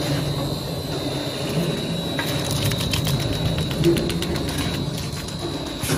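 Automatic shaftless paper tube core cutting machine running, with a steady hum and a constant high whine. From about two seconds in, a quick run of light clicks lasts about three seconds.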